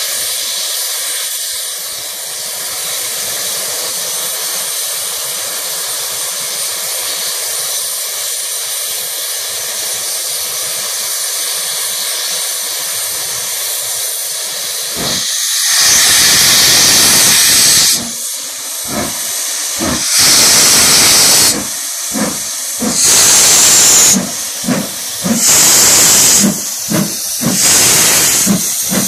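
LMS Stanier Black 5 steam locomotive getting under way. A steady hiss of escaping steam runs for about the first half. Then come loud, separate blasts of steam from the cylinders, each lasting a second or two and coming closer together as the engine gathers speed.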